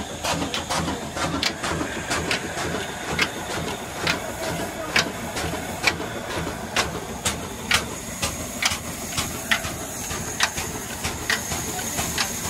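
Old black oil engine, a slow-running diesel with a large flywheel, running steadily at working speed. A sharp click repeats roughly once a second over the low running sound.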